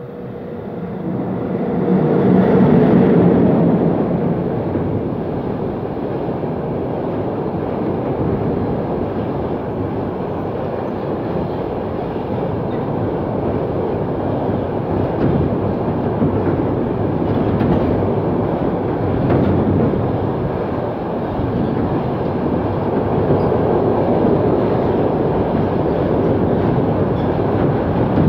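A long train passing close by on the line: it rises quickly to its loudest about three seconds in as the front passes, then the wagons roll by in a steady, continuous rumble of wheels on rail that lasts throughout.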